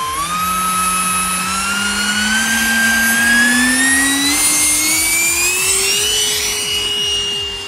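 130 mm electric ducted fan of a large RC jet spooling up for the takeoff roll: a whine rising steadily in pitch, then holding level at full throttle near the end.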